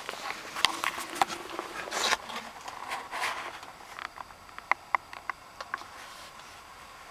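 Rustling and scraping in the straw bedding of a small wooden dog house, with sharp clicks and light knocks that grow sparser after about four seconds.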